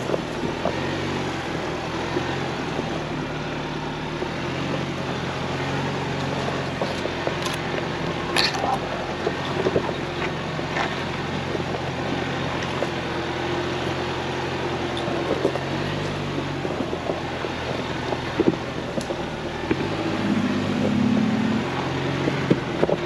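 Ford Bronco Badlands running at low speed off-road, a steady engine note with noise from the trail. There are a few short sharp knocks and clicks, and the engine note shifts a couple of times in the second half.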